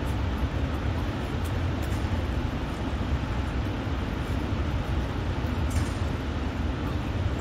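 Rhine Falls, a large, wide waterfall, making a steady rush of heavy water, deepest and strongest in the low rumble with a hiss above it.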